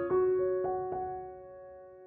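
Soft background piano music: four notes struck in the first second, then left ringing and fading away.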